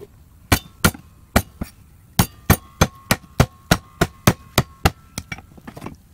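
A cleaver repeatedly whacked down on garlic cloves against a wooden chopping block, crushing them: sharp knocks about three times a second, turning to lighter taps near the end.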